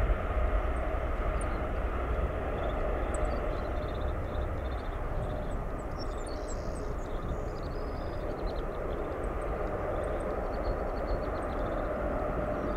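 Boeing 777-300ER's twin GE90-115B turbofans at takeoff thrust as the jet lifts off and climbs away: a steady deep rumble with a droning tone that slowly fades.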